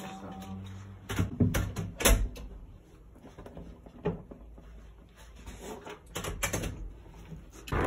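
Scattered clicks and knocks of handling in a small room, ending with a pair of clicks from a door's lever handle and latch as the door is opened.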